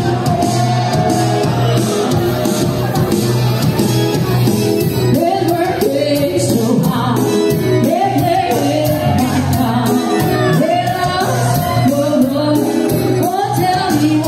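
Live band music: a singer over an electronic keyboard, with a steady beat.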